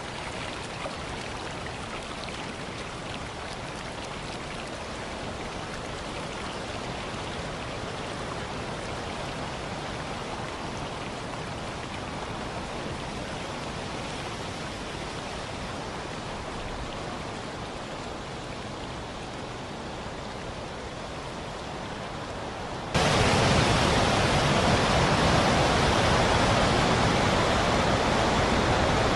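Waterfall rushing in a steady roar of falling water. About 23 seconds in it becomes suddenly much louder and fuller.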